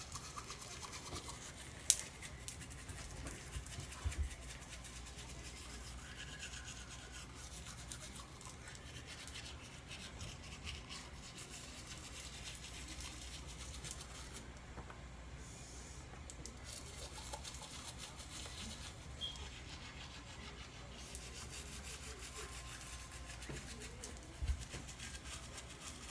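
A child brushing her teeth with a light-up toothbrush: faint scrubbing of bristles over a steady low hum, with a sharp click about two seconds in and a few soft knocks.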